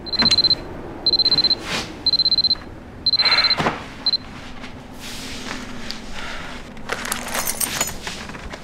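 Electronic alarm clock beeping: a high-pitched beep about half a second long, sounding once a second four times, with a fifth beep cut short about four seconds in as it is silenced. After that come the softer rustles of bedding and movement as the sleeper gets up.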